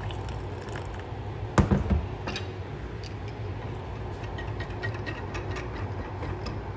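Hot water pouring from a kettle into a glass measuring jug, then a thump about a second and a half in. After that a silicone-coated wire whisk stirs the water, ticking lightly against the glass as it dissolves a Maggi stock cube.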